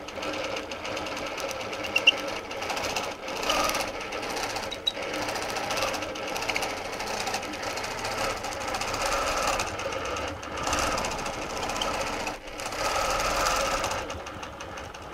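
Longarm quilting machine running and stitching along a ruler-guided arc, with a few brief dips in speed. It stops about a second before the end.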